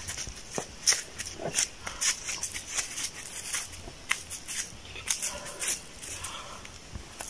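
Flip-flop footsteps shuffling and crunching on dry leaf litter and dirt, in quick irregular steps of several a second.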